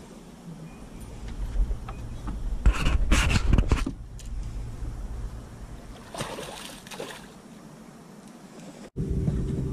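Splashing and knocking as a bass is lowered over the side of a boat and let go in the lake, loudest a few seconds in with a second, weaker splash later. Near the end the sound cuts to a motor's steady hum.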